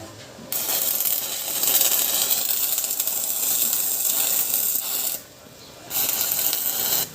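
Stick-welding arc from an inverter welder, crackling and sizzling as the electrode burns. It strikes up suddenly, runs about four and a half seconds, breaks off briefly, then runs about another second before stopping.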